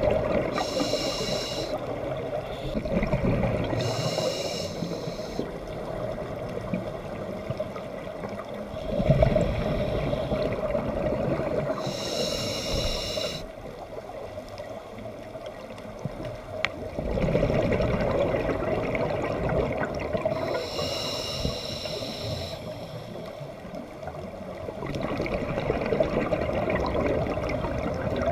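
A scuba diver breathing through a regulator in slow cycles. Each inhale is a short hiss, four in all, and each exhale is a longer spell of rumbling, gurgling bubbles.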